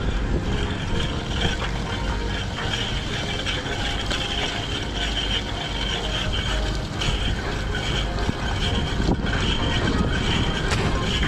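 Wind rushing over the action camera's microphone and the cyclocross bike's tyres rolling on asphalt at speed, with a few faint knocks from the bike.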